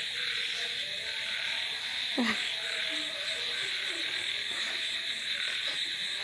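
Steady night chorus of calling frogs, with one short falling sound about two seconds in.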